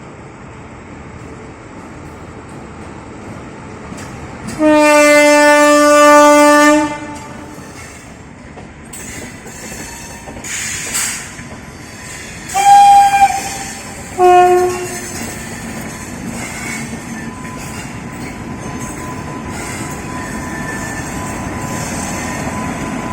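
Indian Railways locomotive horn: one long, loud blast about five seconds in, then two short blasts around thirteen and fourteen seconds. A train's rumble and clatter of wheels grows louder toward the end.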